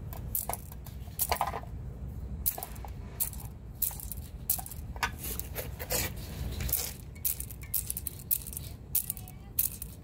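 Worn tapered roller wheel bearing rocked by hand, its loose rollers and cage knocking with irregular light metallic clicks and rattles: the sign of excessive play in a bad bearing.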